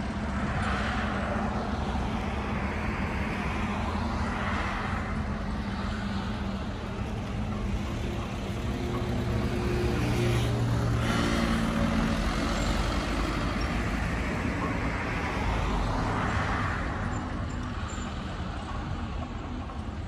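Caterpillar 313C hydraulic excavator's diesel engine running steadily while it digs and swings, with a hiss that comes and goes over the hum. It grows louder about halfway through, as the machine works under load, then eases off.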